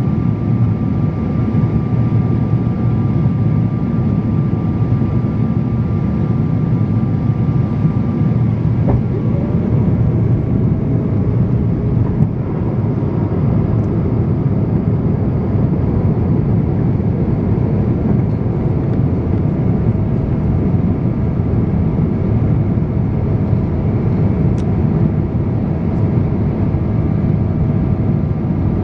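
Steady roar inside the cabin of a Boeing 777-300ER descending on approach, from its GE90-115B engines and the airflow. A faint whine runs through it and drops lower in pitch about nine seconds in.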